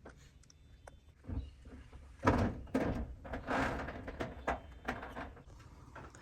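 A series of knocks and thuds mixed with short scraping sounds, loudest between about two and four seconds in.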